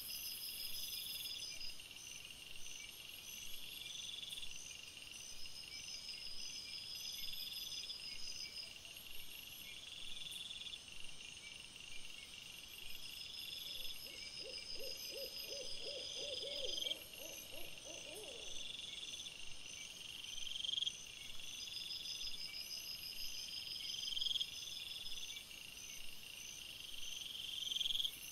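Crickets chirping in the dark, several overlapping high trills repeating every two seconds or so. Roughly halfway through, a lower, rapidly pulsed call joins in for about four seconds.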